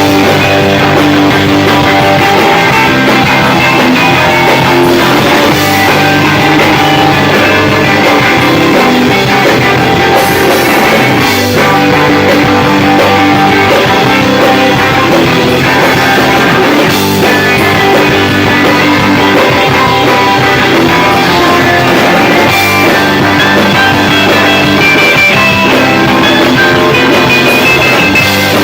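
Live rock band playing loud, with electric guitar and drum kit, coming in abruptly at full volume.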